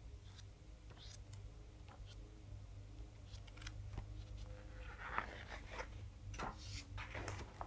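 Faint rustling and soft clicks of glossy magazine pages being handled and turned, busier in the last few seconds, over a low steady room hum.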